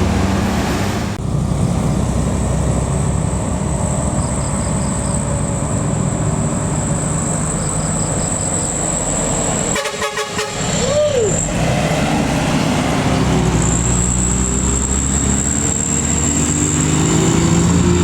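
Heavy diesel engines of buses and trucks labouring up a hill, a loud low engine rumble with a steady high whine over it. There is a brief break about ten seconds in, and the engine note rises in pitch near the end.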